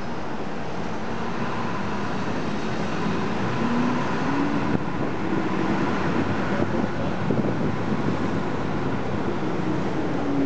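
Dense road traffic heard from the open window of a moving city bus: a steady rush of engines and tyres, with an engine hum underneath that shifts in pitch.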